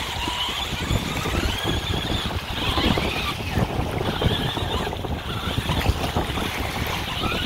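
Wind buffeting the microphone over small waves washing on the shore, with the high, wavering whine of the Hot Wheels RC Terrain Twister's small electric motors as it churns its screw rollers over wet sand.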